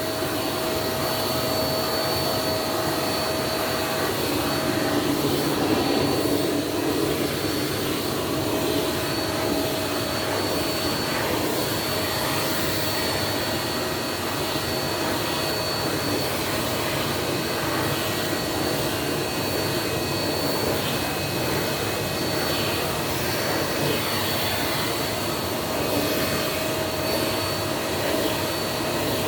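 Vacuum cleaner running steadily as it is used to groom a cat's fur: an even motor hum with a thin high whine over it.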